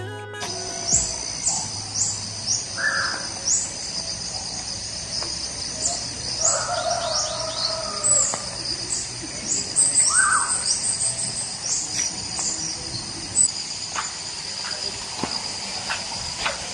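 Evening chorus of insects and birds: a steady high insect drone with short rising chirps repeating over it, and a few louder bird calls about 3, 7 and 10 seconds in.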